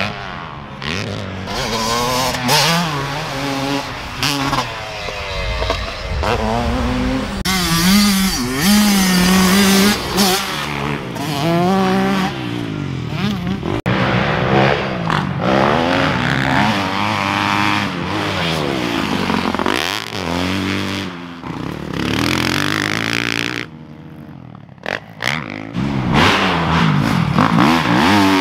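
Motocross dirt bike engines revving hard and easing off as they ride the track, the pitch climbing and falling again and again with throttle and gear changes. The engine noise drops away for a second or so about three-quarters of the way through.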